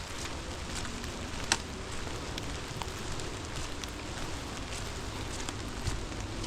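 Rain falling, with scattered sharp ticks of drops striking close by and one louder tick about a second and a half in.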